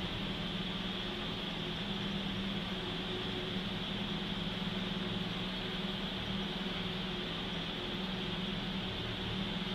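Steady mechanical hum with a faint high whine, unchanging throughout.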